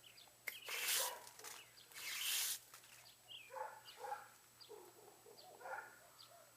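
A dog barking several times, with two short hissing bursts in the first few seconds.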